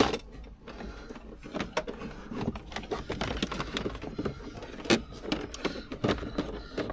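Irregular rustling, scraping and knocking of a cable being pulled through plastic dashboard trim, with scattered sharp clicks.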